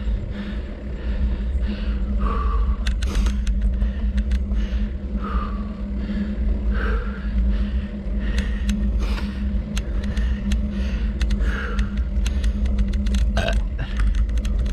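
Steady low rumble of wind and road noise on a bicycle-mounted camera as the bike climbs, with short sounds every few seconds and scattered sharp clicks and crackles from about halfway on.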